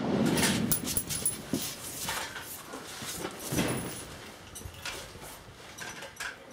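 The rumble of a rifle shot dying away at the start, then a shooter shifting from prone to sitting on a concrete firing line: clothing rustling, boots and gear scuffing on the concrete, and the rifle being handled, in irregular bursts.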